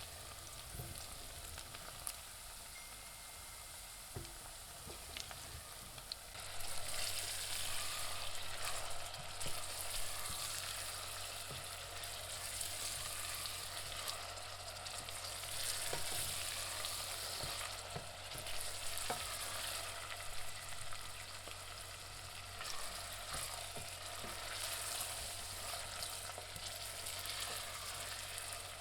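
Onions frying in a pan, a steady sizzle with scattered crackles and pops. It gets clearly louder about six seconds in, and a low steady hum starts at the same moment.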